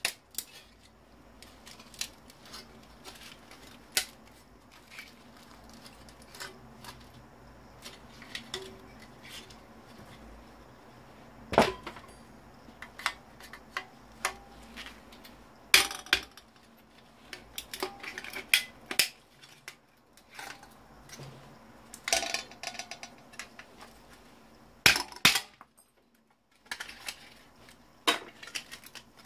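Scattered metallic clicks, clinks and knocks of hand tools working at the parts of a 1997 Samsung monitor being dismantled, prying at a component glued firmly in place. Louder clusters of clatter come about twelve, sixteen, twenty-two and twenty-five seconds in.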